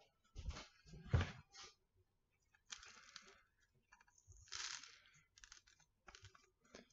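Fingers brushing and rubbing fine sand over small stone pavers in a ceramic teacup planter: a few light knocks and clicks in the first second or so, then two short rustling sweeps of sand and scattered small ticks.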